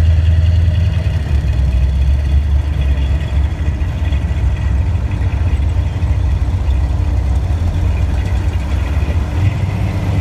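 Classic car engines running at low speed as a line of old cars rolls slowly past, a steady low rumble.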